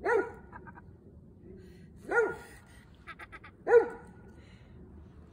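A dog barking three times, sharp single barks about a second and a half apart, the last one loudest. Between the barks come two brief runs of quick clicks.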